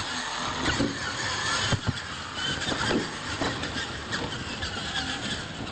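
Radio-controlled monster trucks' motors whining and wavering in pitch as they race on dirt, with a couple of short thumps about two and three seconds in.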